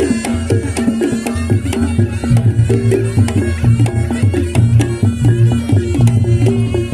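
Traditional Javanese reog music: a percussion ensemble of drums and tuned gongs playing a steady repeating rhythm, with a wavering high melody line over it.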